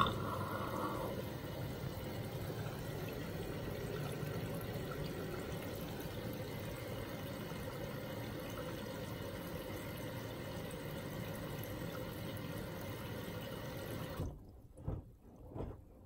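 Hoover AXI washing machine filling: water rushes steadily into the drum through the inlet valve, then shuts off abruptly about fourteen seconds in, followed by a few light knocks.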